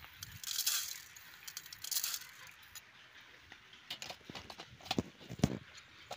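Dry coriander seeds spooned onto a steel plate, falling in two short pattering showers, followed by several sharp clinks of a steel spoon against steel dishes, a couple of them ringing briefly.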